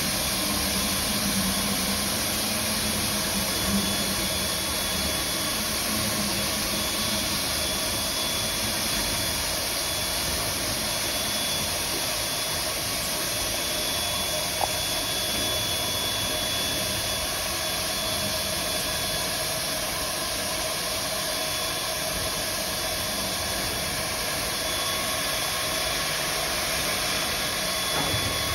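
SNCF 141 R steam locomotive hissing steam in a steady rush, with no puffing beats.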